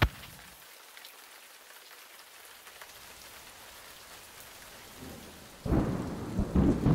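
Faint, steady hiss of rain. About five and a half seconds in, a loud, uneven rumble of rain striking the microphone begins.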